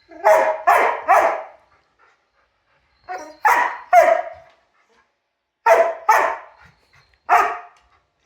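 A dog barking at a robot vacuum cleaner, about nine loud barks in quick groups of two or three with pauses between.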